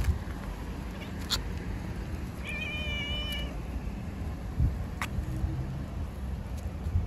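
Tabby cat meowing once, a level call of about a second, with two sharp clicks before and after it over a low background rumble.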